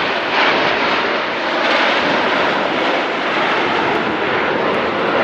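Jet engines of four F-16 Fighting Falcons flying past in tight diamond formation: a loud, steady rushing jet noise.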